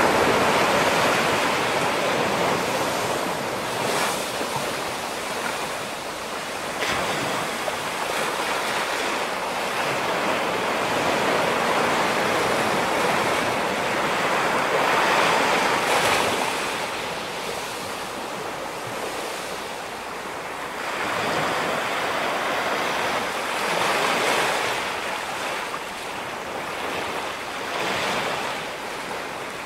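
Ocean surf breaking and washing back, swelling and fading every few seconds.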